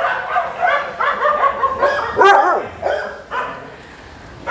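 Several dogs barking over one another at different pitches, with a higher yelp that rises and falls about two seconds in; the barking thins out near the end.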